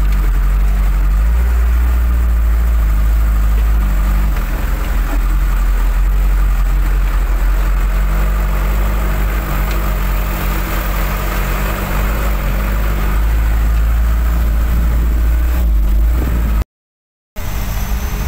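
Bulldozer's diesel engine running steadily, heard from inside its cab, with a brief break near the end.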